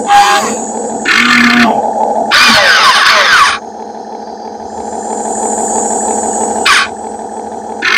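Excavator machinery working: a steady mechanical drone with three sudden louder bursts in the first few seconds, the last one with falling pitch sweeps, then a thin high whine in the second half.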